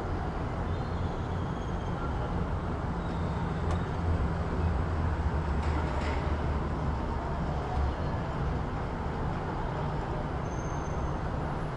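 City street traffic ambience: a steady low rumble of engines and tyres that swells a little in the middle as a heavier vehicle goes by, with a few faint high chirps over it.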